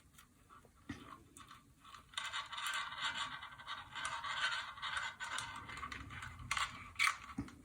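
Fan wires and a connector being handled and twisted together: a scraping, rustling sound for about four seconds from two seconds in, with scattered small clicks before and after.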